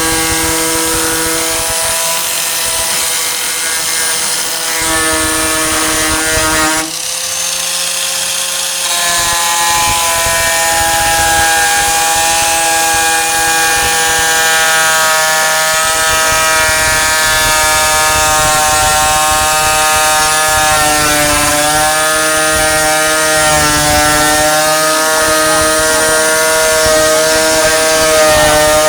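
A 4-1/2 in. electric angle grinder runs continuously against the steel of a truck tailgate, giving a steady high motor whine. Its pitch shifts as the load on the disc changes, once about seven seconds in and again a little past twenty seconds.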